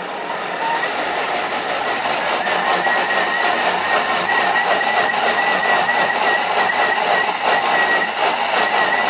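Thermomix TM6 food processor blending chickpeas into hummus, its motor and blade running steadily and growing louder as the speed is turned up from 5 toward 10. A high whine comes in about two and a half seconds in and holds.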